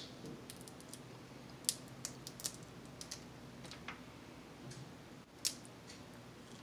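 Fingers picking apart cooked crab shell: scattered sharp clicks and small cracks at an irregular pace, the loudest about a second and a half in and another about five and a half seconds in.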